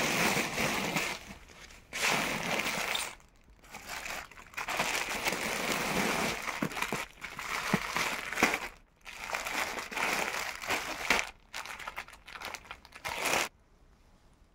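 Clear plastic garment packets crinkling as they are picked up and shuffled, in several bursts of a second or two, with short pauses between them, stopping shortly before the end.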